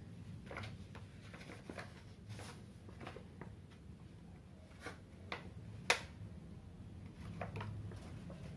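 Scattered light clicks and taps of small objects being handled, over a low steady hum. The sharpest click comes about six seconds in.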